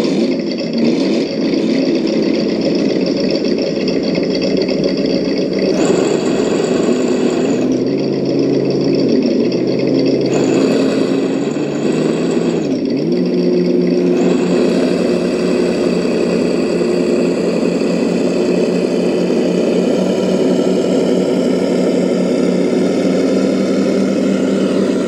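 Electric motors and gear drives of RC crawlers (a Traxxas TRX-4 on Traxx tracks and a TRX-6 Mercedes G63) whining as they climb a sandy slope under load, over a grinding noise of tracks and tyres in the sand. The whine dips in pitch twice around the middle as the throttle eases, then holds steady.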